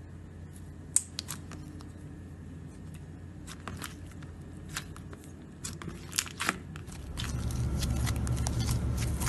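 Hands squeezing and kneading slime, making scattered sticky clicks and pops, with the sharpest near one second in and around six seconds in. A steady low hum lies underneath and gets louder from about seven seconds in.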